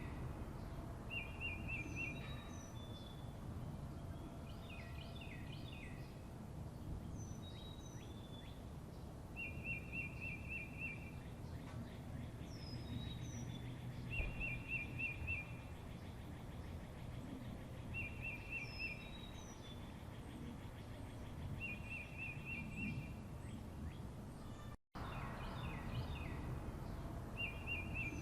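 Songbirds singing: one bird repeats a short, rapid trill about every four seconds, with thin, high whistled notes between, over a steady low background rumble. The sound cuts out for an instant near the end, and the same sequence starts again.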